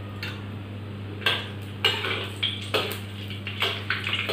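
Metal wok spatula scraping and clinking against a wok as whole spices are stirred in oil: a run of sharp strokes beginning about a second in, over a steady low hum.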